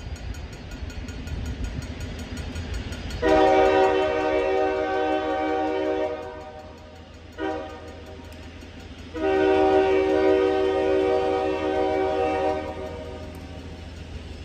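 Locomotive horn sounding for a level crossing in three blasts: a long one, a short one and a long one. A low rumble runs underneath from the approaching train.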